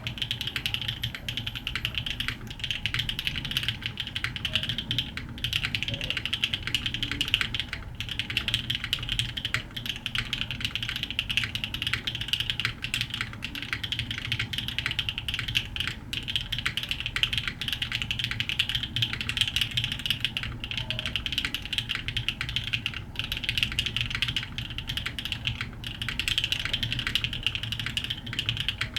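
Fast typing on a Frog TKL mechanical keyboard with Sillyworks Hyacinth v2u switches, a carbon-fibre plate and ABS keycaps: a dense stream of keystrokes with brief pauses every few seconds. A low boom from the table sits under the clacks.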